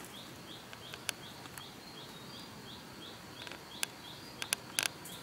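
A small creature repeating a short, rising, high chirp about three times a second over faint forest hiss. A few sharp clicks come through, the loudest near the end.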